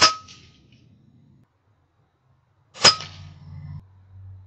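Two shots from an FX Impact M3 .22 calibre PCP air rifle firing 25.5 grain slugs, about three seconds apart, the first right at the start. Each is a sharp crack with a brief ringing tone.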